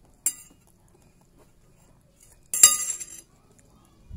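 Metal spoon clinking against a plate: a light tap about a quarter second in, then a louder ringing clatter around two and a half seconds in, as the spoon is set down in the plate.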